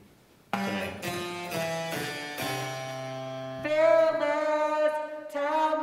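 A harpsichord-like keyboard starts about half a second in with sustained chords, the introduction to a sung operetta duet. A solo singing voice comes in a little past the middle.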